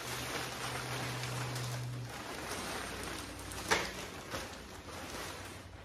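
Steady rustling as the privacy shade and its carrying case are handled and unfolded, with one sharp click about three and a half seconds in. A low hum runs underneath and stops about two seconds in.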